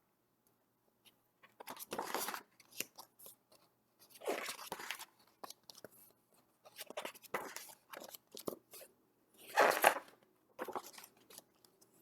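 Paper rustling as the pages of a picture book are handled and turned. Crisp crackly rustles come in irregular bursts every two to three seconds.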